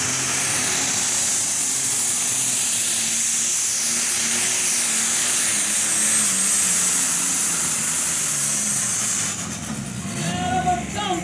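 Light Modified class pulling tractor's engine running flat out as it drags the weight sled, a loud steady engine noise with a high whine on top. The engine falls away about nine seconds in as the pull ends, and music starts near the end.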